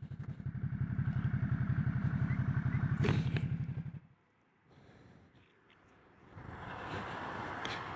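Ducati Multistrada 1200's L-twin engine idling with a steady pulsing beat, a sharp click about three seconds in, then switched off about four seconds in. A faint steady rushing noise comes in near the end.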